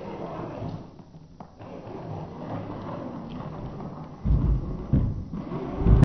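Small electric motor of a cardboard RC car running steadily as the car climbs, easing off briefly about a second in. Heavy low thumps start about four seconds in and come again near the end.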